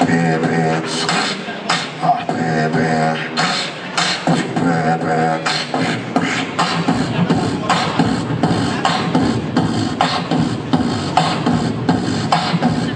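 Beatboxing: mouth percussion with regular kick- and snare-like hits. Through the first half these run under held, pitched vocal tones; about halfway in they give way to a denser, faster run of percussive sounds.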